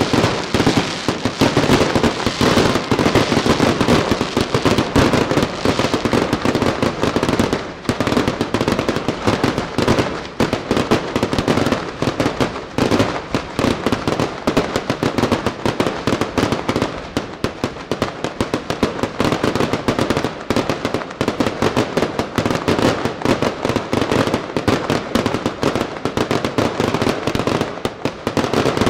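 Fireworks display at full intensity: aerial shells bursting in a dense, unbroken run of bangs, one on top of another, with brief lulls about 8 and 10 seconds in.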